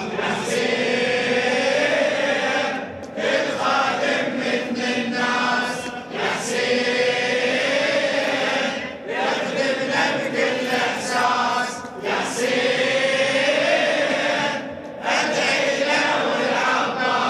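A group of men chanting a Husayni devotional refrain together, in sung phrases of about three seconds with short breaks between them.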